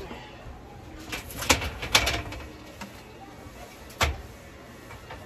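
Sharp knocks and clanks on a black steel shelving rack being handled and fitted together: a quick run of them in the first half, then a single loud knock about four seconds in.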